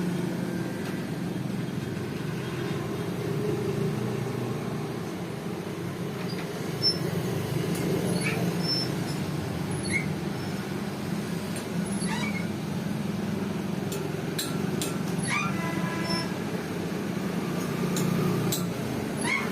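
A steady low mechanical hum, with a few short high squeaks and light clicks over it.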